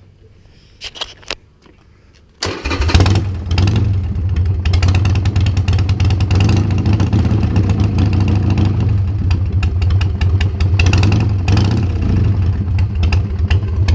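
A few short clicks, then a Harley-Davidson Sportster 1200's carbureted V-twin starts about two and a half seconds in and runs steadily at idle, loud through slip-on mufflers with the baffles removed.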